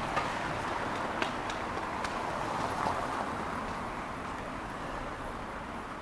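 Steady street noise, likely traffic, with a few short clicks in the first two seconds.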